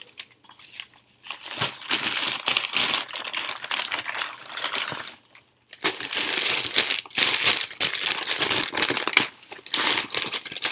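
Paper bag crinkling and rustling as it is handled and crumpled, in irregular bursts with a short pause about five seconds in.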